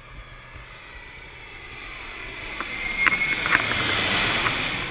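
Twin-engine jet airliner on final approach passing low overhead: a rushing engine noise that grows steadily louder, with a steady whine, and is loudest about three to four and a half seconds in.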